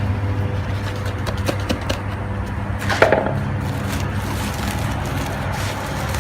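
Feed mixer driven by a 3 hp electric motor running with a steady hum, with scattered knocks and clatter and one louder knock about three seconds in.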